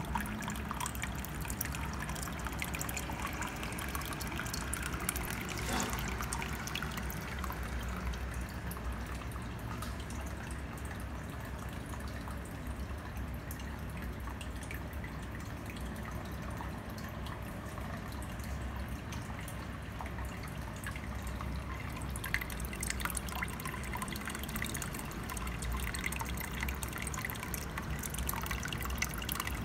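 Water from a filter outflow pouring into a shallow turtle tub: a steady trickle and splash with many small drips. The splashing grows brighter and busier for the last several seconds.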